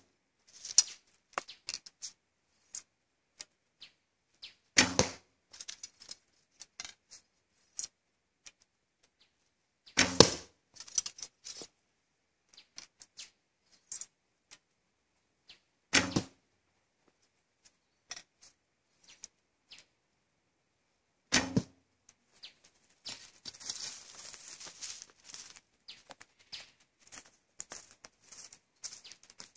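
Four shots from a 55 lb Greatree Highlander recurve bow, each a short sharp thump of the string's release, about five to six seconds apart with faint ticks between. Near the end, footsteps crunch through dry leaf litter and twigs.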